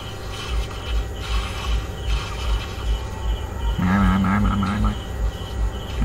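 Mobile battle-arena game audio: a steady, insect-like chirping ambience with regular low thumps about three a second, and a held, wavering tone about four seconds in.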